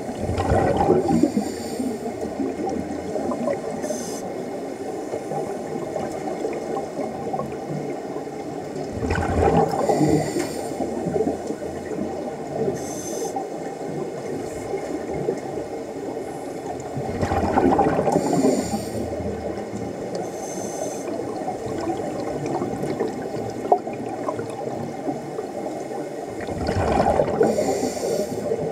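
Scuba regulator breathing heard underwater: exhaled bubbles rumble out in bursts about every eight to nine seconds, with short hissing inhalations between, over a steady underwater hiss.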